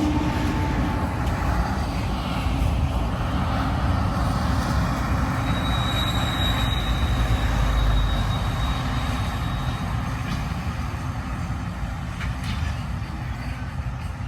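A train running past close by: a steady, loud rumble of wheels and motors, with a thin high squeal for a few seconds in the middle, easing off slightly near the end.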